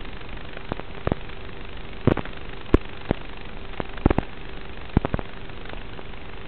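Steady static hiss with a faint low hum and irregular sharp clicks and pops, the sound of an analog FPV video recorder's audio channel. No motor sound is in it: the stats page on screen shows the quadcopter has been disarmed.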